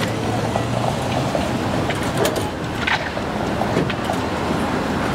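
San Francisco cable car moving along its rails: a steady rumble and rattle, with a low hum in the first second or so and a few sharp clacks between about two and four seconds in.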